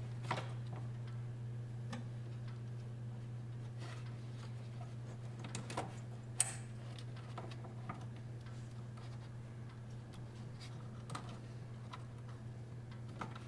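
A few faint, scattered clicks and taps as plastic fuel-line quick-connect fittings are handled and pushed back onto a fuel filter, over a steady low hum.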